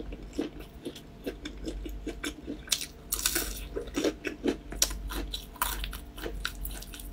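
Close-miked chewing of a crispy deep-fried lotus root sandwich (ouhe): irregular crisp crunches and wet mouth clicks.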